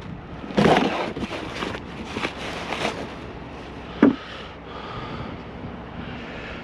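Items being handled and rummaged through in a curbside junk pile: a run of rustling and clattering in the first three seconds, then a single sharp knock about four seconds in.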